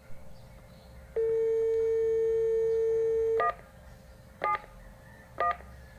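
Landline telephone dial tone, a steady single tone held for about two seconds. It stops as three short touch-tone keypress beeps follow about a second apart, their tone pairs matching the digits 1, 7, 1 as the 171 hotline is dialled.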